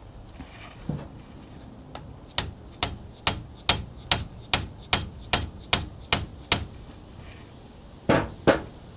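Sharp hammer blows on a pipe wrench that grips a seized nut on an old South Bend lathe's change gear, struck to shock the nut loose. They come in an even run of about eleven, some two and a half a second, then two more near the end.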